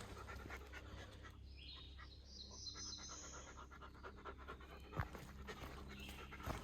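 A hiker breathing hard while walking down a rocky trail, with a few sharp footstep knocks.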